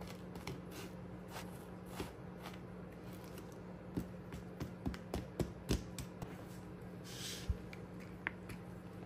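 A spoon pressing and scraping crushed biscuit crumbs into a metal tart tin, with scattered light taps and clicks that are busiest about four to six seconds in, and a short gritty scrape about seven seconds in.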